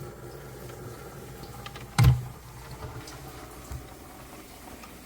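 A single sharp knock about two seconds in, with a fainter knock a little later, over a low steady hum.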